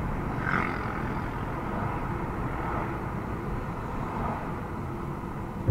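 Steady road and engine rumble of a moving car, heard from inside the cabin through the dash cam's built-in microphone. A brief higher sound rises above it about half a second in.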